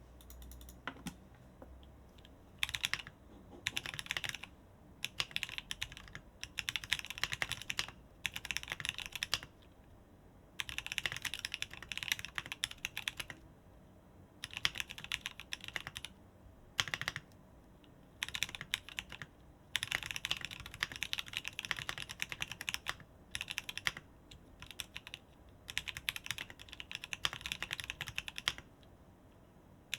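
Typing on a keyboard: rapid key clicks in runs of one to three seconds, with short pauses between them.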